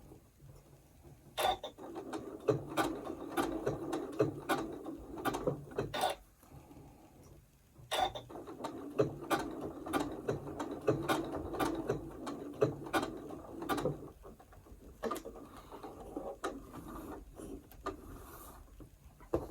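Domestic sewing machine stitching a small blanket stitch, running in two spells of several seconds each with a steady clatter and regular sharp clicks, stopping briefly between them to turn the work. Near the end it is quieter, with only a few scattered clicks.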